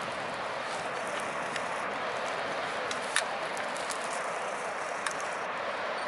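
Steady roar of big-wave surf breaking, with a few sharp clicks, the loudest about three seconds in.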